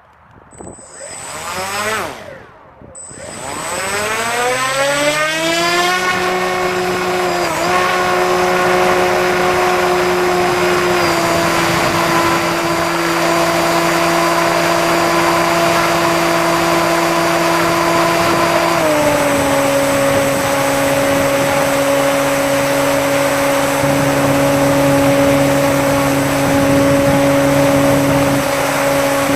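Bixler RC plane's electric motor and propeller: a short blip, then a whine that rises in pitch over a few seconds to full throttle and holds steady. The throttle is eased back in two steps, about eleven seconds in and about nineteen seconds in, each dropping the pitch.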